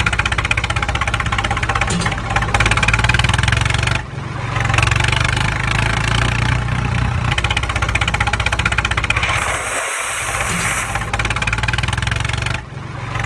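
Tractor engine sound effect running with a fast chugging beat and a strong low rumble, breaking off briefly about four seconds in and again near ten seconds.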